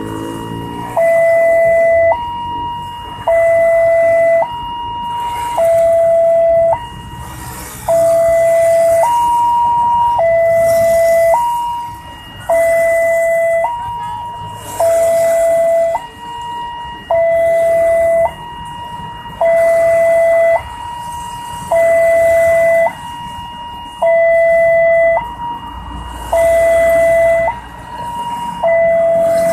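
Railway level-crossing warning siren sounding a two-tone alarm, swapping between a lower and a higher tone about once a second, the lower tone louder. It is the crossing's warning that the barriers are down for an approaching train.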